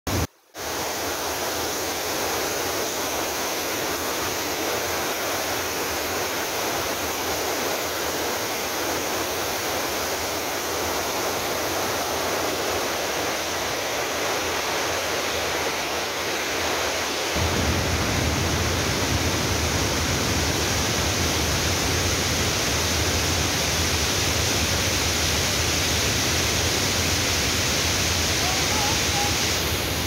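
Mountain torrent cascading over boulders: a steady rush of white water. From about halfway through, the sound turns fuller and deeper.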